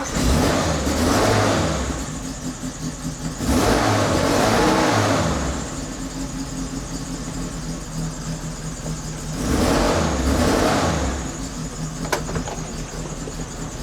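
1992 Suzuki Samurai's 1.3-litre four-cylinder engine catching on a cold start with the choke out, then revved three times between spells of steady idle while it warms up. There is a single sharp click near the end.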